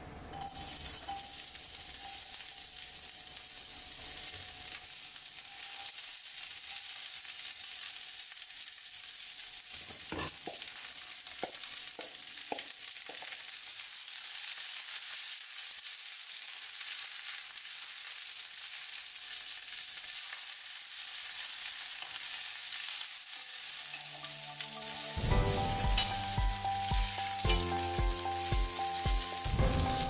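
Sliced red onion and shredded cabbage sizzling as they fry in a stainless steel pan, stirred with a wooden spatula, with a few knocks about ten to thirteen seconds in. The sizzle starts as the onion goes into the hot pan. About five seconds before the end, background music with a steady beat comes in over it.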